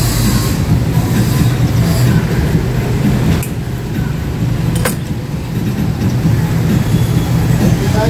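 Steady low mechanical rumble, like a running engine or passing traffic, with two sharp clicks a few seconds in, as from hand tools on metal or plastic.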